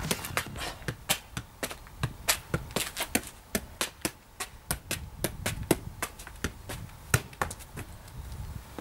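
A football being juggled with the feet: a quick, steady run of sharp taps as the ball strikes the shoe, about three to four touches a second.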